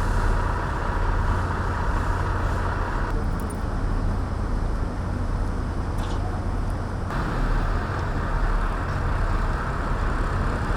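Steady low engine rumble with a broad rushing noise over it, changing abruptly in level about three and seven seconds in.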